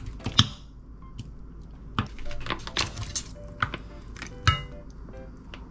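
Plastic food trays knocked and pressed against a metal pan while saucy braised pork ribs are emptied out: irregular knocks and clatter, with soft background music underneath.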